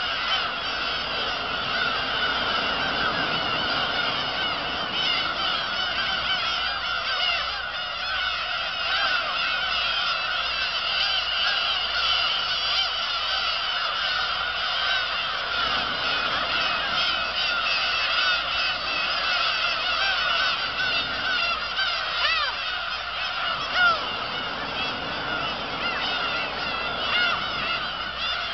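A black-tailed gull colony calling: a dense, unbroken chorus of many overlapping gull calls, with one louder call standing out near the end.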